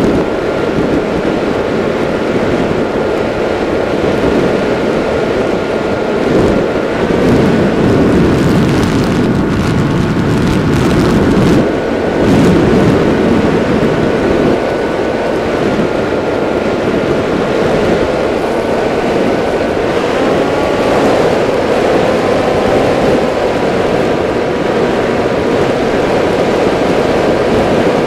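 RC flying wing's electric motor and propeller whining steadily, the pitch stepping up or down a few times with throttle changes, over a loud rush of wind on the onboard camera's microphone.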